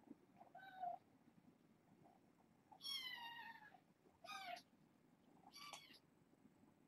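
Two-month-old kittens meowing: four short meows, the longest about three seconds in with its pitch falling.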